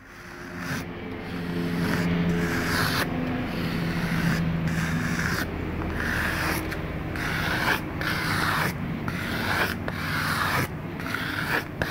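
Rough rubbing strokes, one after another at an uneven pace, over a low steady hum: an unidentified mystery sound.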